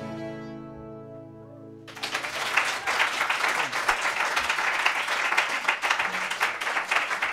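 A final chord strummed on acoustic guitars rings out and fades, and about two seconds in, applause and clapping break out and continue.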